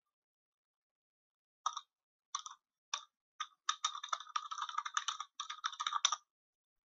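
Typing on a computer keyboard: four spaced-out keystrokes starting about two seconds in, then a fast run of keystrokes for about two and a half seconds.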